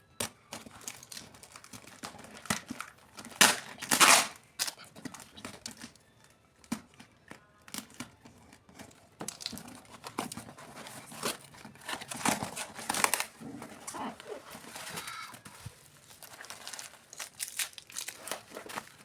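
Plastic packaging crinkling and rustling in irregular bursts as a package is unwrapped by hand, with some tearing; the loudest bursts come about four seconds in.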